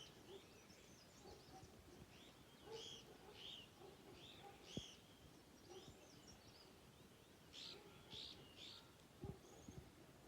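Faint bird calls: short, high chirping notes in small clusters, with gaps between them, over a low outdoor background. A couple of brief low knocks sound about halfway through and near the end.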